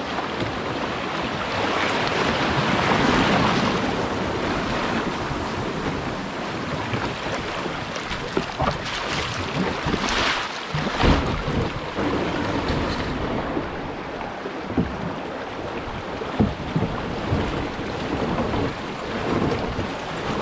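Rushing water of a shallow, rocky river rapid as a canoe runs through it, with wind on the microphone. The rush swells early on. Several sharp knocks come about halfway through and one more later.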